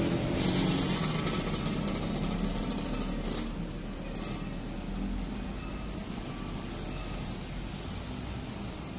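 Road traffic passing: a city bus and motorcycles driving by, their engines loudest in the first second or two and fading as the bus pulls away.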